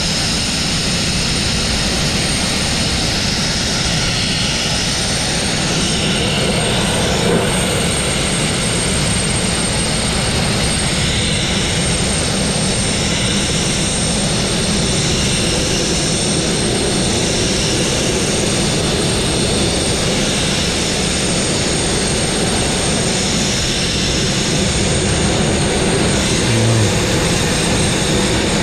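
Sandblasting nozzle firing fine crushed-glass abrasive at the steel hull of a narrowboat: a loud, steady hiss of compressed air and grit as it strips paint and mill scale.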